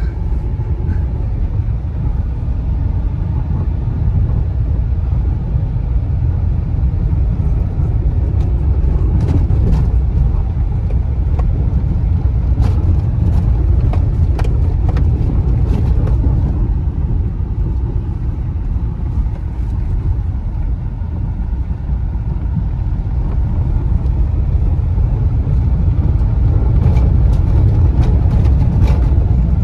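In-cabin noise of a Hyundai hatchback driving in fourth gear over a dirt field: a steady low engine and tyre rumble, with short knocks now and then, around ten seconds in, again between about 13 and 16 seconds, and near the end.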